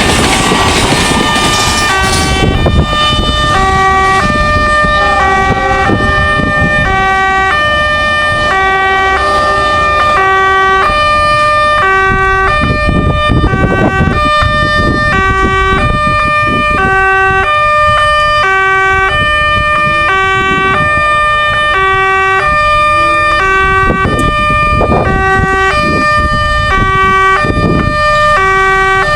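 Electronic warning siren of a KAB-model railway level-crossing gate, sounding a repeating pattern of stepped tones, each about half a second long. The rush of a passing train stops about two seconds in.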